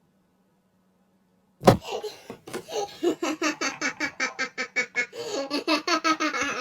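Silence, then from about a second and a half in, a sharp knock followed by a voice laughing in a fast run of repeated ha-ha pulses.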